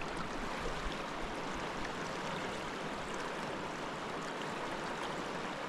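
River water rushing over rocks, a steady even rush.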